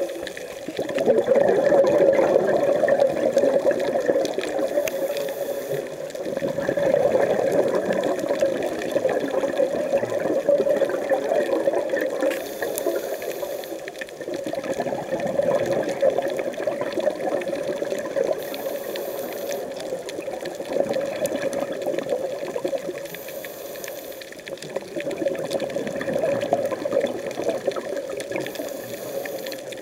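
Scuba regulator breathing recorded underwater: long gurgling rushes of exhaled bubbles every five or six seconds, with a short faint hiss between them.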